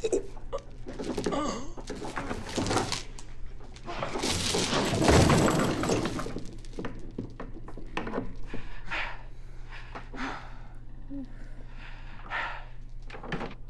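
Soundtrack of a violent struggle in a TV drama: scuffling and thuds, with a loud crashing stretch about four to six seconds in.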